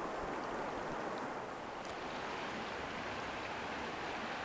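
Steady soft hiss of river water moving around a kayak on a calm stretch of current, with a faint tick about two seconds in.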